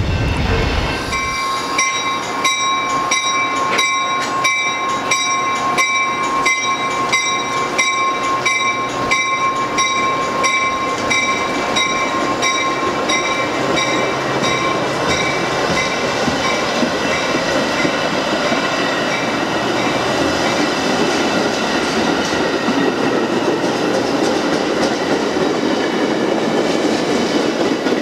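Metra commuter train of stainless bilevel gallery cars rolling past close by, wheels clicking over rail joints at a steady rhythm, with a steady high squeal that fades out about halfway through. For about the first second, the low rumble of a departing freight train.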